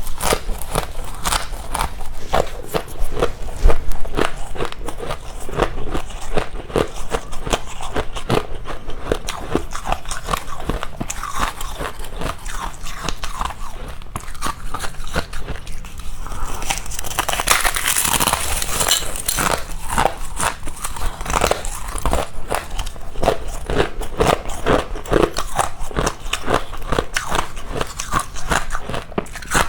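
Freezer frost (snow ice) being bitten and chewed close to the microphone: a dense, steady run of crisp crunches, brighter and hissier for a few seconds around the middle.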